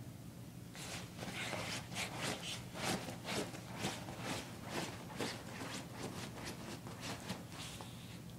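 Corgi puppy digging at a fabric dog bed: quick rhythmic scratching of paws on cloth, about three strokes a second, starting about a second in and stopping near the end.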